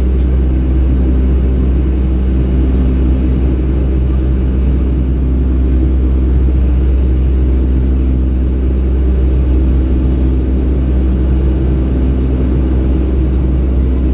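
Boeing 757-200 jet engines and airflow heard from inside the passenger cabin: a steady, loud, deep drone with a constant hum over it, unchanging throughout.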